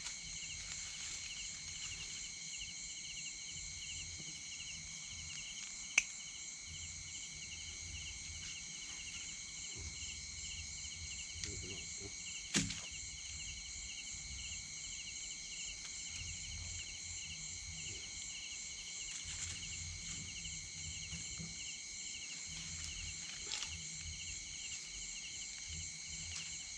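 Steady outdoor insect chorus: several layers of high trilling, some pulsing rapidly, with a low rumble underneath. Two sharp clicks about six and twelve and a half seconds in.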